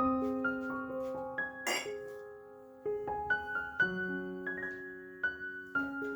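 Gentle solo piano background music, notes sounding one after another and slowly dying away. A single sharp clink cuts in about two seconds in.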